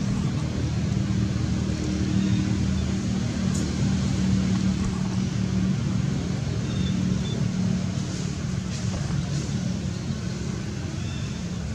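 Steady low motor hum with an even drone that holds without change.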